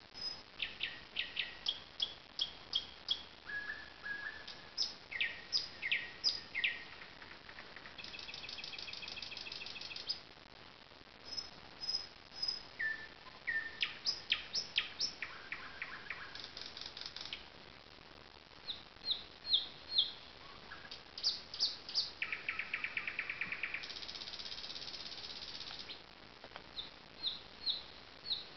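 Nightingale singing: a run of varied phrases of sharp, quickly repeated whistled notes, with fast rattling trills lasting about two seconds around eight seconds in and again past the twenty-second mark.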